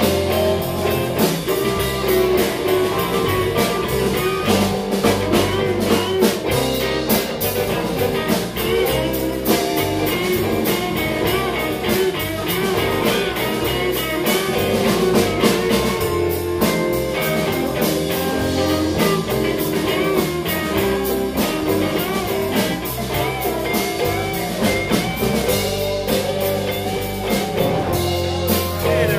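Live blues band playing an instrumental passage: electric guitars, electric bass and a drum kit, with a lead guitar line bending notes over a steady beat.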